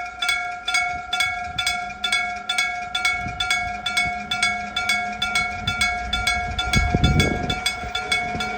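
Electric-bell (denshō-type) railway level-crossing bell ringing, an even ding about twice a second with a clear ringing tone. A low rumble builds under it near the end.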